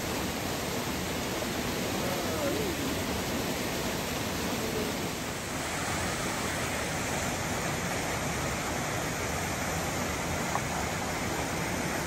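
Small waterfall plunging into a rock pool: a steady, even rush of falling water.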